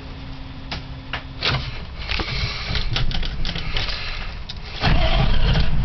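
A 6.2 L IDI V8 diesel being cranked by its starter, with rapid clattering, then catching about five seconds in and running with a sudden, much louder low rumble.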